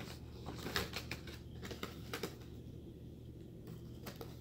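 Faint, light plastic clicks and taps, several in the first two seconds and then none: small plastic toy figures being handled and set down on a laptop.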